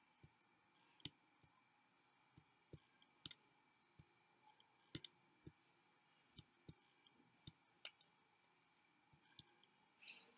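Near silence: faint room tone broken by scattered, irregular faint clicks, a few of them sharper than the rest.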